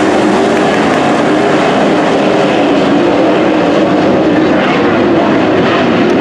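V8 engines of a field of dirt late model race cars running on the track: a loud, steady drone with a slightly wavering pitch.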